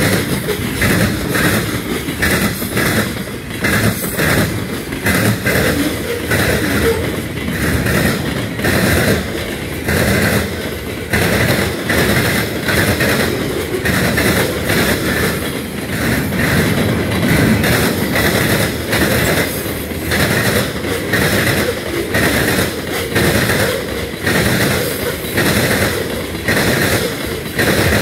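Freight cars of a CSX manifest train rolling past close by, refrigerator boxcars then tank cars: a steady heavy rumble of steel wheels on rail, broken by repeated clacks as the wheels cross rail joints.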